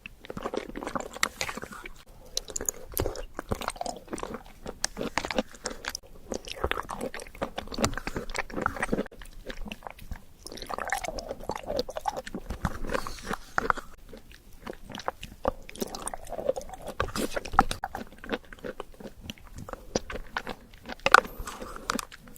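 Close-miked eating: repeated bites and chewing of a chocolate doughnut or white mochi, full of short wet clicks, in clusters with brief pauses.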